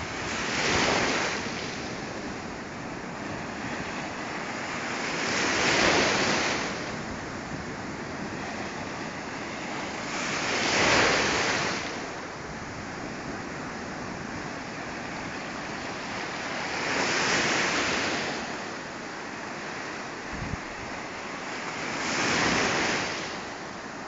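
Black Sea surf breaking on a sand beach: five waves crash and rush in, about every five to six seconds, over a steady hiss of foaming water.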